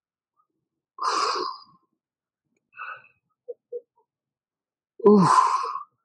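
A man's forceful exhales with the effort of an ab exercise: a breathy one about a second in, and a louder one near the end that starts with a voiced, falling grunt.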